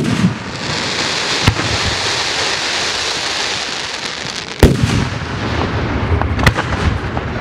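Aerial fireworks shells bursting: four sharp bangs, the loudest about two-thirds of the way in, with a continuous hiss between them.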